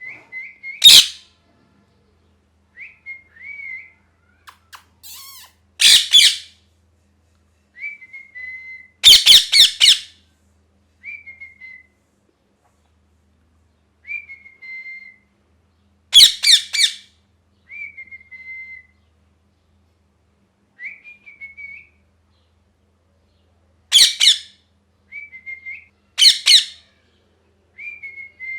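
Ringneck parakeet screeching loudly in short bursts every few seconds, some in quick runs of two to four, with soft short falling whistles in between.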